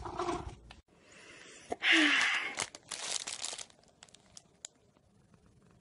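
Crinkling and rustling with sharp clicks, loudest about two seconds in and dying away near four seconds.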